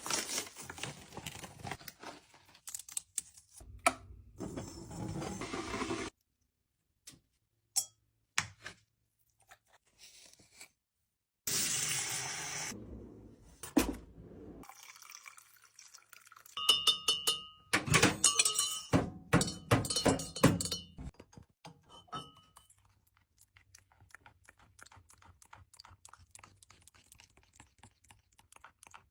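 African grey parrot drinking from a mug: wet clicks and lapping from its beak and tongue, in short bursts separated by silent gaps. A run of sharp beak taps on the mug near the middle is the loudest part, with a brief ringing after some taps.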